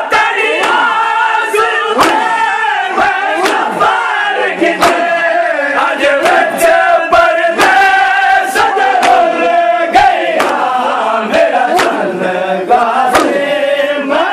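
A group of men chanting a Muharram nauha together while doing matam, slapping their chests in time. The slaps land as sharp beats about every two-thirds of a second under the loud chanting.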